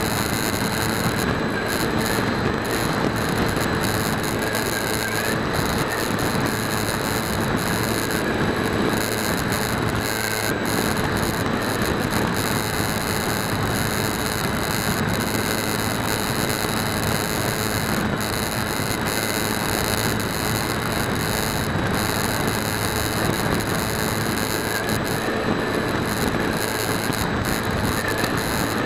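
Bixler 2 RC plane's electric motor and 7x6 propeller running steadily in cruise, heard from an onboard camera as an even hum mixed with rushing air over the microphone.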